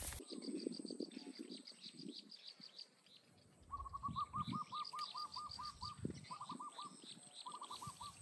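Birds chirping: quick series of high chirps, joined a few seconds in by a lower call given in fast runs of notes, three runs in all.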